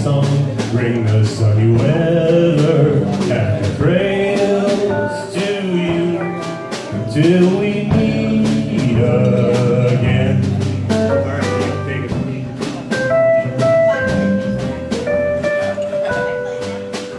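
Small live acoustic band playing a song: a man singing over strummed acoustic guitar, upright bass and a digital piano. The singing stops about ten seconds in, and the instruments carry on with held piano notes.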